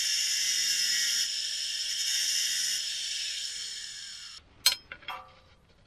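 Angle grinder cutting a small groove into a steel plate: a steady, high hiss of disc on metal. After about four seconds the motor's pitch drops as it winds down and stops, followed by a couple of light knocks.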